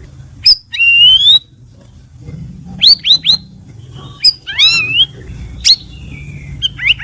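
Cucak rawis singing short, clear whistled phrases of quick rising and falling notes, with brief pauses between phrases, over a faint low hum.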